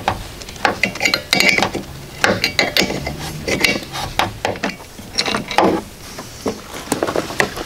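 Irregular metallic clicking and clinking from a small windshield wiper arm puller being turned with a hand wrench to press the wiper arm off its spindle.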